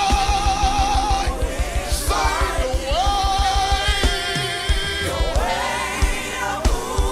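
Gospel worship music performed live: a lead voice sings long, gliding notes, with backing singers over a band and a steady drum beat.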